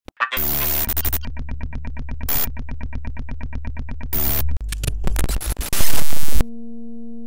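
Electronic intro jingle: a fast, pulsing synthesizer over heavy bass, broken by bursts of glitchy static and clicks. It swells to its loudest burst about six seconds in, which cuts off abruptly into a single held electronic tone.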